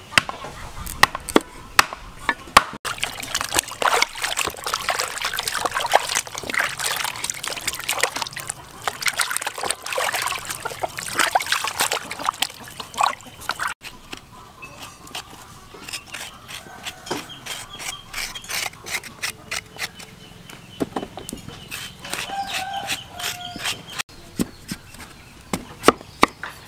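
A knife and a metal spoon working a ripe papaya on a wooden chopping block: wet scraping and slicing, with sharp knocks of the blade on the wood. Near the end a cleaver comes down on the block in a few hard strikes.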